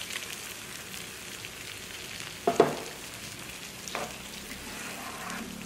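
Beaten egg thinned with water, just poured into hot oil with chilies and fried peda fish, sizzling steadily in a frying pan as a spatula stirs it. A single sharp knock on the pan about two and a half seconds in is the loudest sound.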